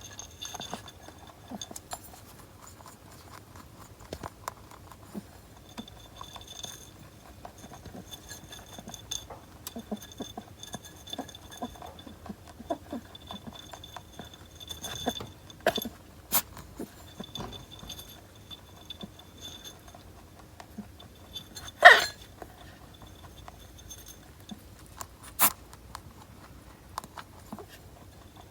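Pet rabbit making small clicking and rustling noises, with faint high squeaky cries on and off. It gives one short, sharp sneeze about 22 seconds in.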